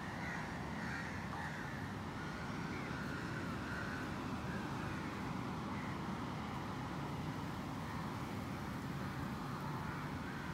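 Steady low outdoor background rumble with faint short calls scattered through it.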